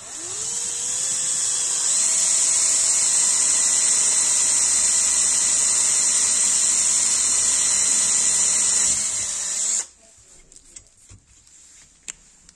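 Handheld electric drill boring a hole into an aluminium heatsink plate: the motor spins up over the first second, runs steadily with a high whine for about nine seconds, then stops.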